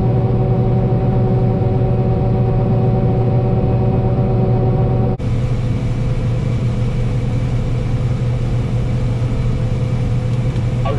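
Harvest machinery's engine running steadily: a low, even hum with several steady tones above it. About five seconds in the sound changes abruptly and the tones drop out, while the engine hum carries on.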